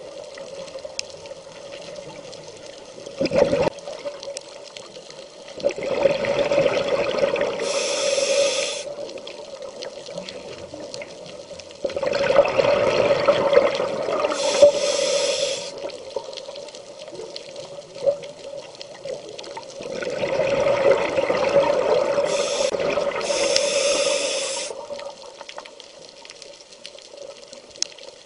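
A scuba diver breathing through a regulator underwater: three long rushes of exhaled bubbles, each ending with a high hiss of air through the regulator, repeating about every seven seconds.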